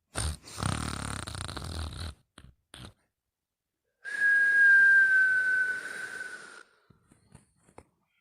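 Sleeper snoring: a rattling snore over the first two seconds, then about four seconds in a breath with a high whistle that falls slightly in pitch, lasting a couple of seconds.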